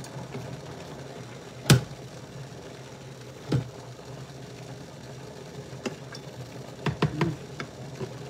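Tongs and a spatula knocking against a wok while leafy greens are turned and stirred: a few sharp knocks, the loudest about two seconds in and a quick cluster near the end, over a steady low hum.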